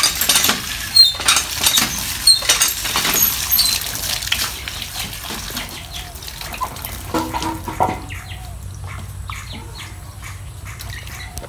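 Water pouring from a hand pump's spout and splashing into a plastic basin onto mushrooms being washed, loud for the first few seconds, then quieter sloshing and small splashes as hands rub the mushrooms in the water.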